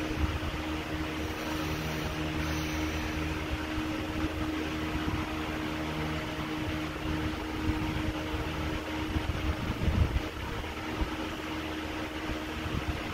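Steady mechanical hum with a hissing, fan-like whoosh, and a few low bumps about nine to ten seconds in.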